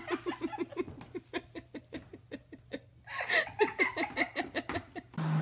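A person laughing in quick, breathy bursts, about five or six a second, in two long bouts. The second bout is louder, and the laughter stops abruptly near the end.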